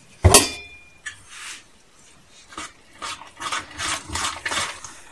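A sharp metallic clink that rings briefly near the start, then a quick, even run of stirring strokes, about five a second, as a spoon mixes thick cake batter in a metal mixing bowl.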